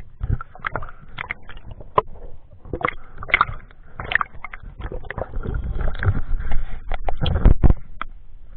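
Muffled underwater sound picked up through a waterproof action-camera housing: a low rumble of moving water with many irregular clicks and knocks, louder in the second half.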